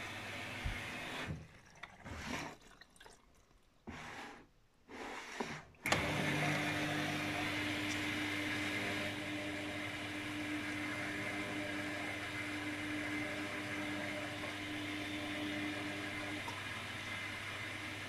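Luxor WM 1042 front-loading washing machine early in its cotton wash. About six seconds in, a steady rush of water with a low hum starts suddenly and runs on. Before that are a few seconds of near quiet with faint clicks.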